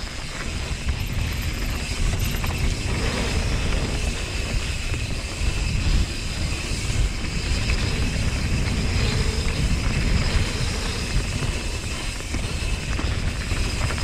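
Mountain bike riding fast down a dirt singletrack: wind buffeting the action-camera microphone in a heavy rumble, with tyres on loose dirt and the bike's chain and frame rattling and clicking over the bumps.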